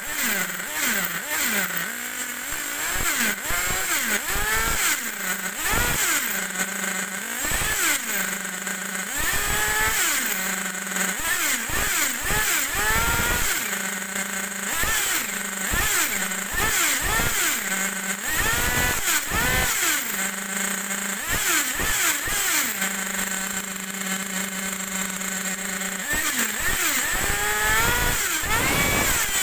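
SH .21C two-stroke nitro glow engine in a 1/8 scale buggy, running on the bench. It idles steadily between repeated throttle blips, each revving it up and falling back, every second or two, with a longer stretch of idle about three-quarters of the way through.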